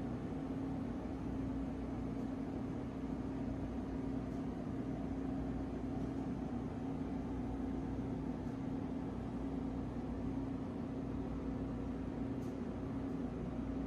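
Steady machine hum with a constant low drone and a faint hiss.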